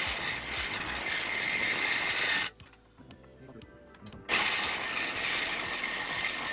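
Power saw cutting into the clutch fan of a Ford 6.9 IDI diesel engine with a harsh, steady high whine. It runs in two spells of about three seconds, stopping about two and a half seconds in and starting again about four seconds in.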